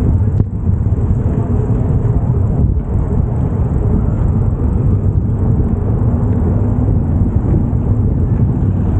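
Wind buffeting the microphone while cycling, a steady low rumble, with city traffic noise underneath.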